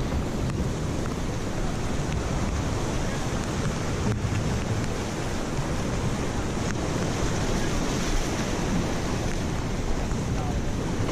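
Wind buffeting the microphone over surf washing against jetty rocks, a steady rushing noise.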